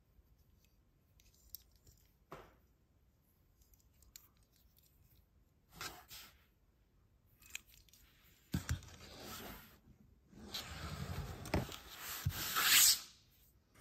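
Toy packaging handled close to the microphone, rustling and crinkling in two longer stretches, the louder one near the end. Before them come a few light clicks and short rustles as a small die-cast toy car is turned in the fingers.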